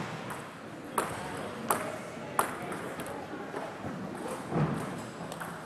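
Table tennis ball bounced between points: about four sharp single clicks, the last three evenly spaced about 0.7 s apart, in a reverberant hall.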